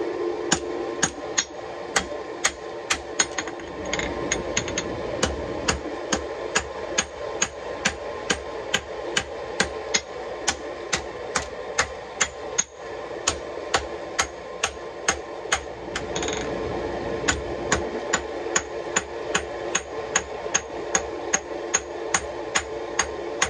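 Hand hammer striking a red-hot Damascus steel blade on an anvil in a steady rhythm of about two blows a second, drawing out the point of a Bowie knife.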